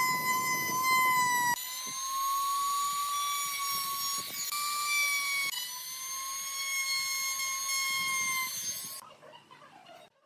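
High-pitched steady whine of an electric woodworking power tool's motor spinning at speed, changing abruptly twice and stopping about nine seconds in.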